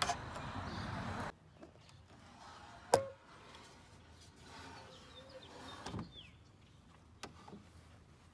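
Sandpaper rubbing over small wooden dowel pieces, a steady scratchy noise that cuts off abruptly just over a second in. Then loose wooden parts are handled: one sharp knock about three seconds in, a duller thud near six seconds and a few light clicks.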